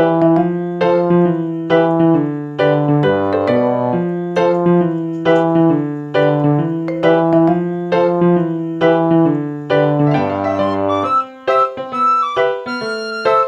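Background piano music, a steady run of struck notes over held bass notes that changes to a lighter, higher passage near the end.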